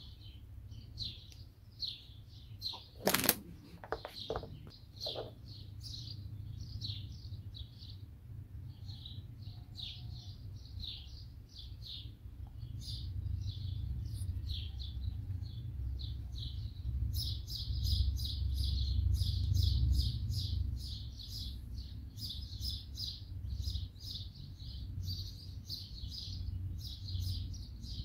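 Birds chirping in the background: short, high chirps all through, getting much busier and almost continuous in the second half. A few sharp clicks come about three to five seconds in, over a low rumble.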